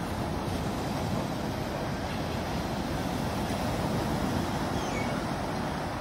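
Small waves washing onto a sandy beach, with wind on the microphone: a steady noise heaviest in the low range, swelling slightly mid-way.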